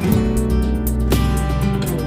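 Background music led by a strummed acoustic guitar with a bass line.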